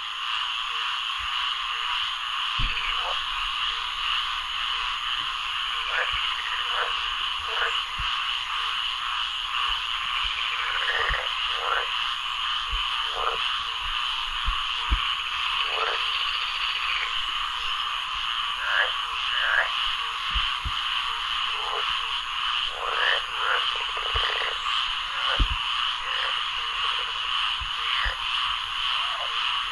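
A chorus of frogs calling, a dense steady trill with single lower croaks standing out every second or so. A few soft low thumps come and go.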